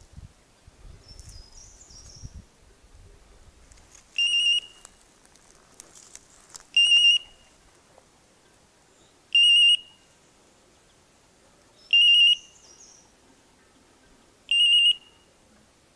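Hunting dog's beeper collar sounding its point signal: a high electronic beep about every two and a half seconds, five times, the sign that the English setter has stopped and is holding point.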